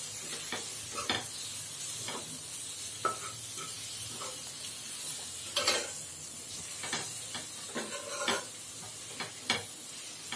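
A steel spoon stirs and scrapes chopped tomatoes and onions frying in oil in a metal kadai, with irregular metallic scrapes and knocks against the pan. Under them runs a steady low sizzle.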